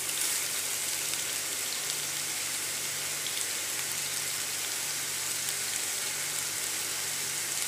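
Raw beef patties sizzling in a thin layer of oil in a nonstick frying pan over a low flame: a steady, even hiss with faint crackles.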